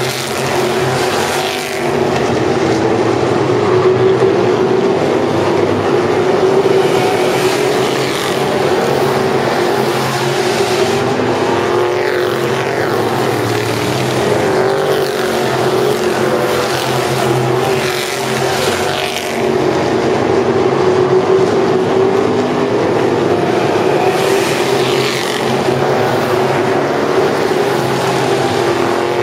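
A pack of asphalt modified race cars running at speed on an oval: loud, continuous engine noise, the pitch sweeping up and down several times as cars pass by and accelerate out of the turns.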